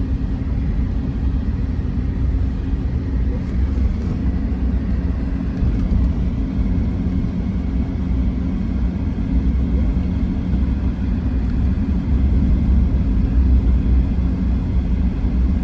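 Steady low rumble of a car driving at an even pace: engine drone and tyre noise.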